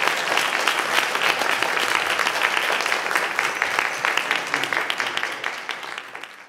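Audience applauding, fading out over the last couple of seconds.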